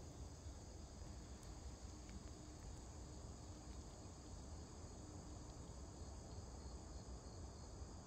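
Faint, steady, high-pitched insect trilling over a low background rumble.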